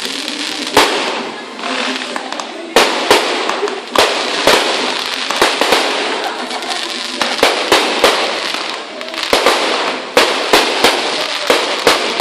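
Aerial fireworks bursting overhead: sharp bangs at irregular intervals, about two a second, coming thicker after the first couple of seconds, over a continuous crackle from the glittering shells.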